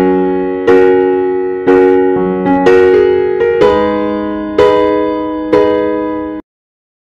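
Background piano music: a slow sequence of chords, struck about once a second, each ringing and fading before the next. It cuts off suddenly about six seconds in.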